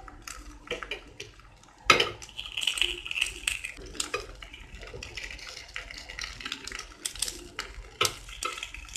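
A thin wooden stick scraping and tapping in the hollows of a paniyaram pan as the paniyaram balls are flipped over one by one: a run of small clicks with a sharper knock about two seconds in, over faint sizzling of oil.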